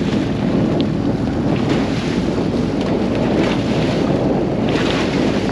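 Strong storm wind buffeting the microphone in a loud, steady rush, with water sounds from the boat in rough water beneath it.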